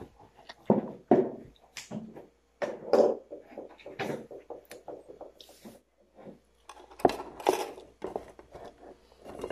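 Irregular knocks and thunks from a metal rice-cooker pot and serving spoon being handled, with rice being scooped from the pot.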